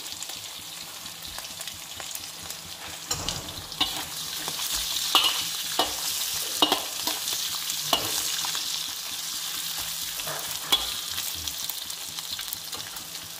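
Beef, garlic and onion sizzling in hot oil in a wok, with a metal spatula scraping and knocking against the pan now and then as the food is stirred.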